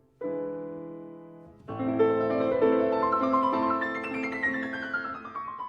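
Background piano music: a chord struck and left to fade, then a new phrase comes in about a second and a half in, ending in a run of notes stepping downward.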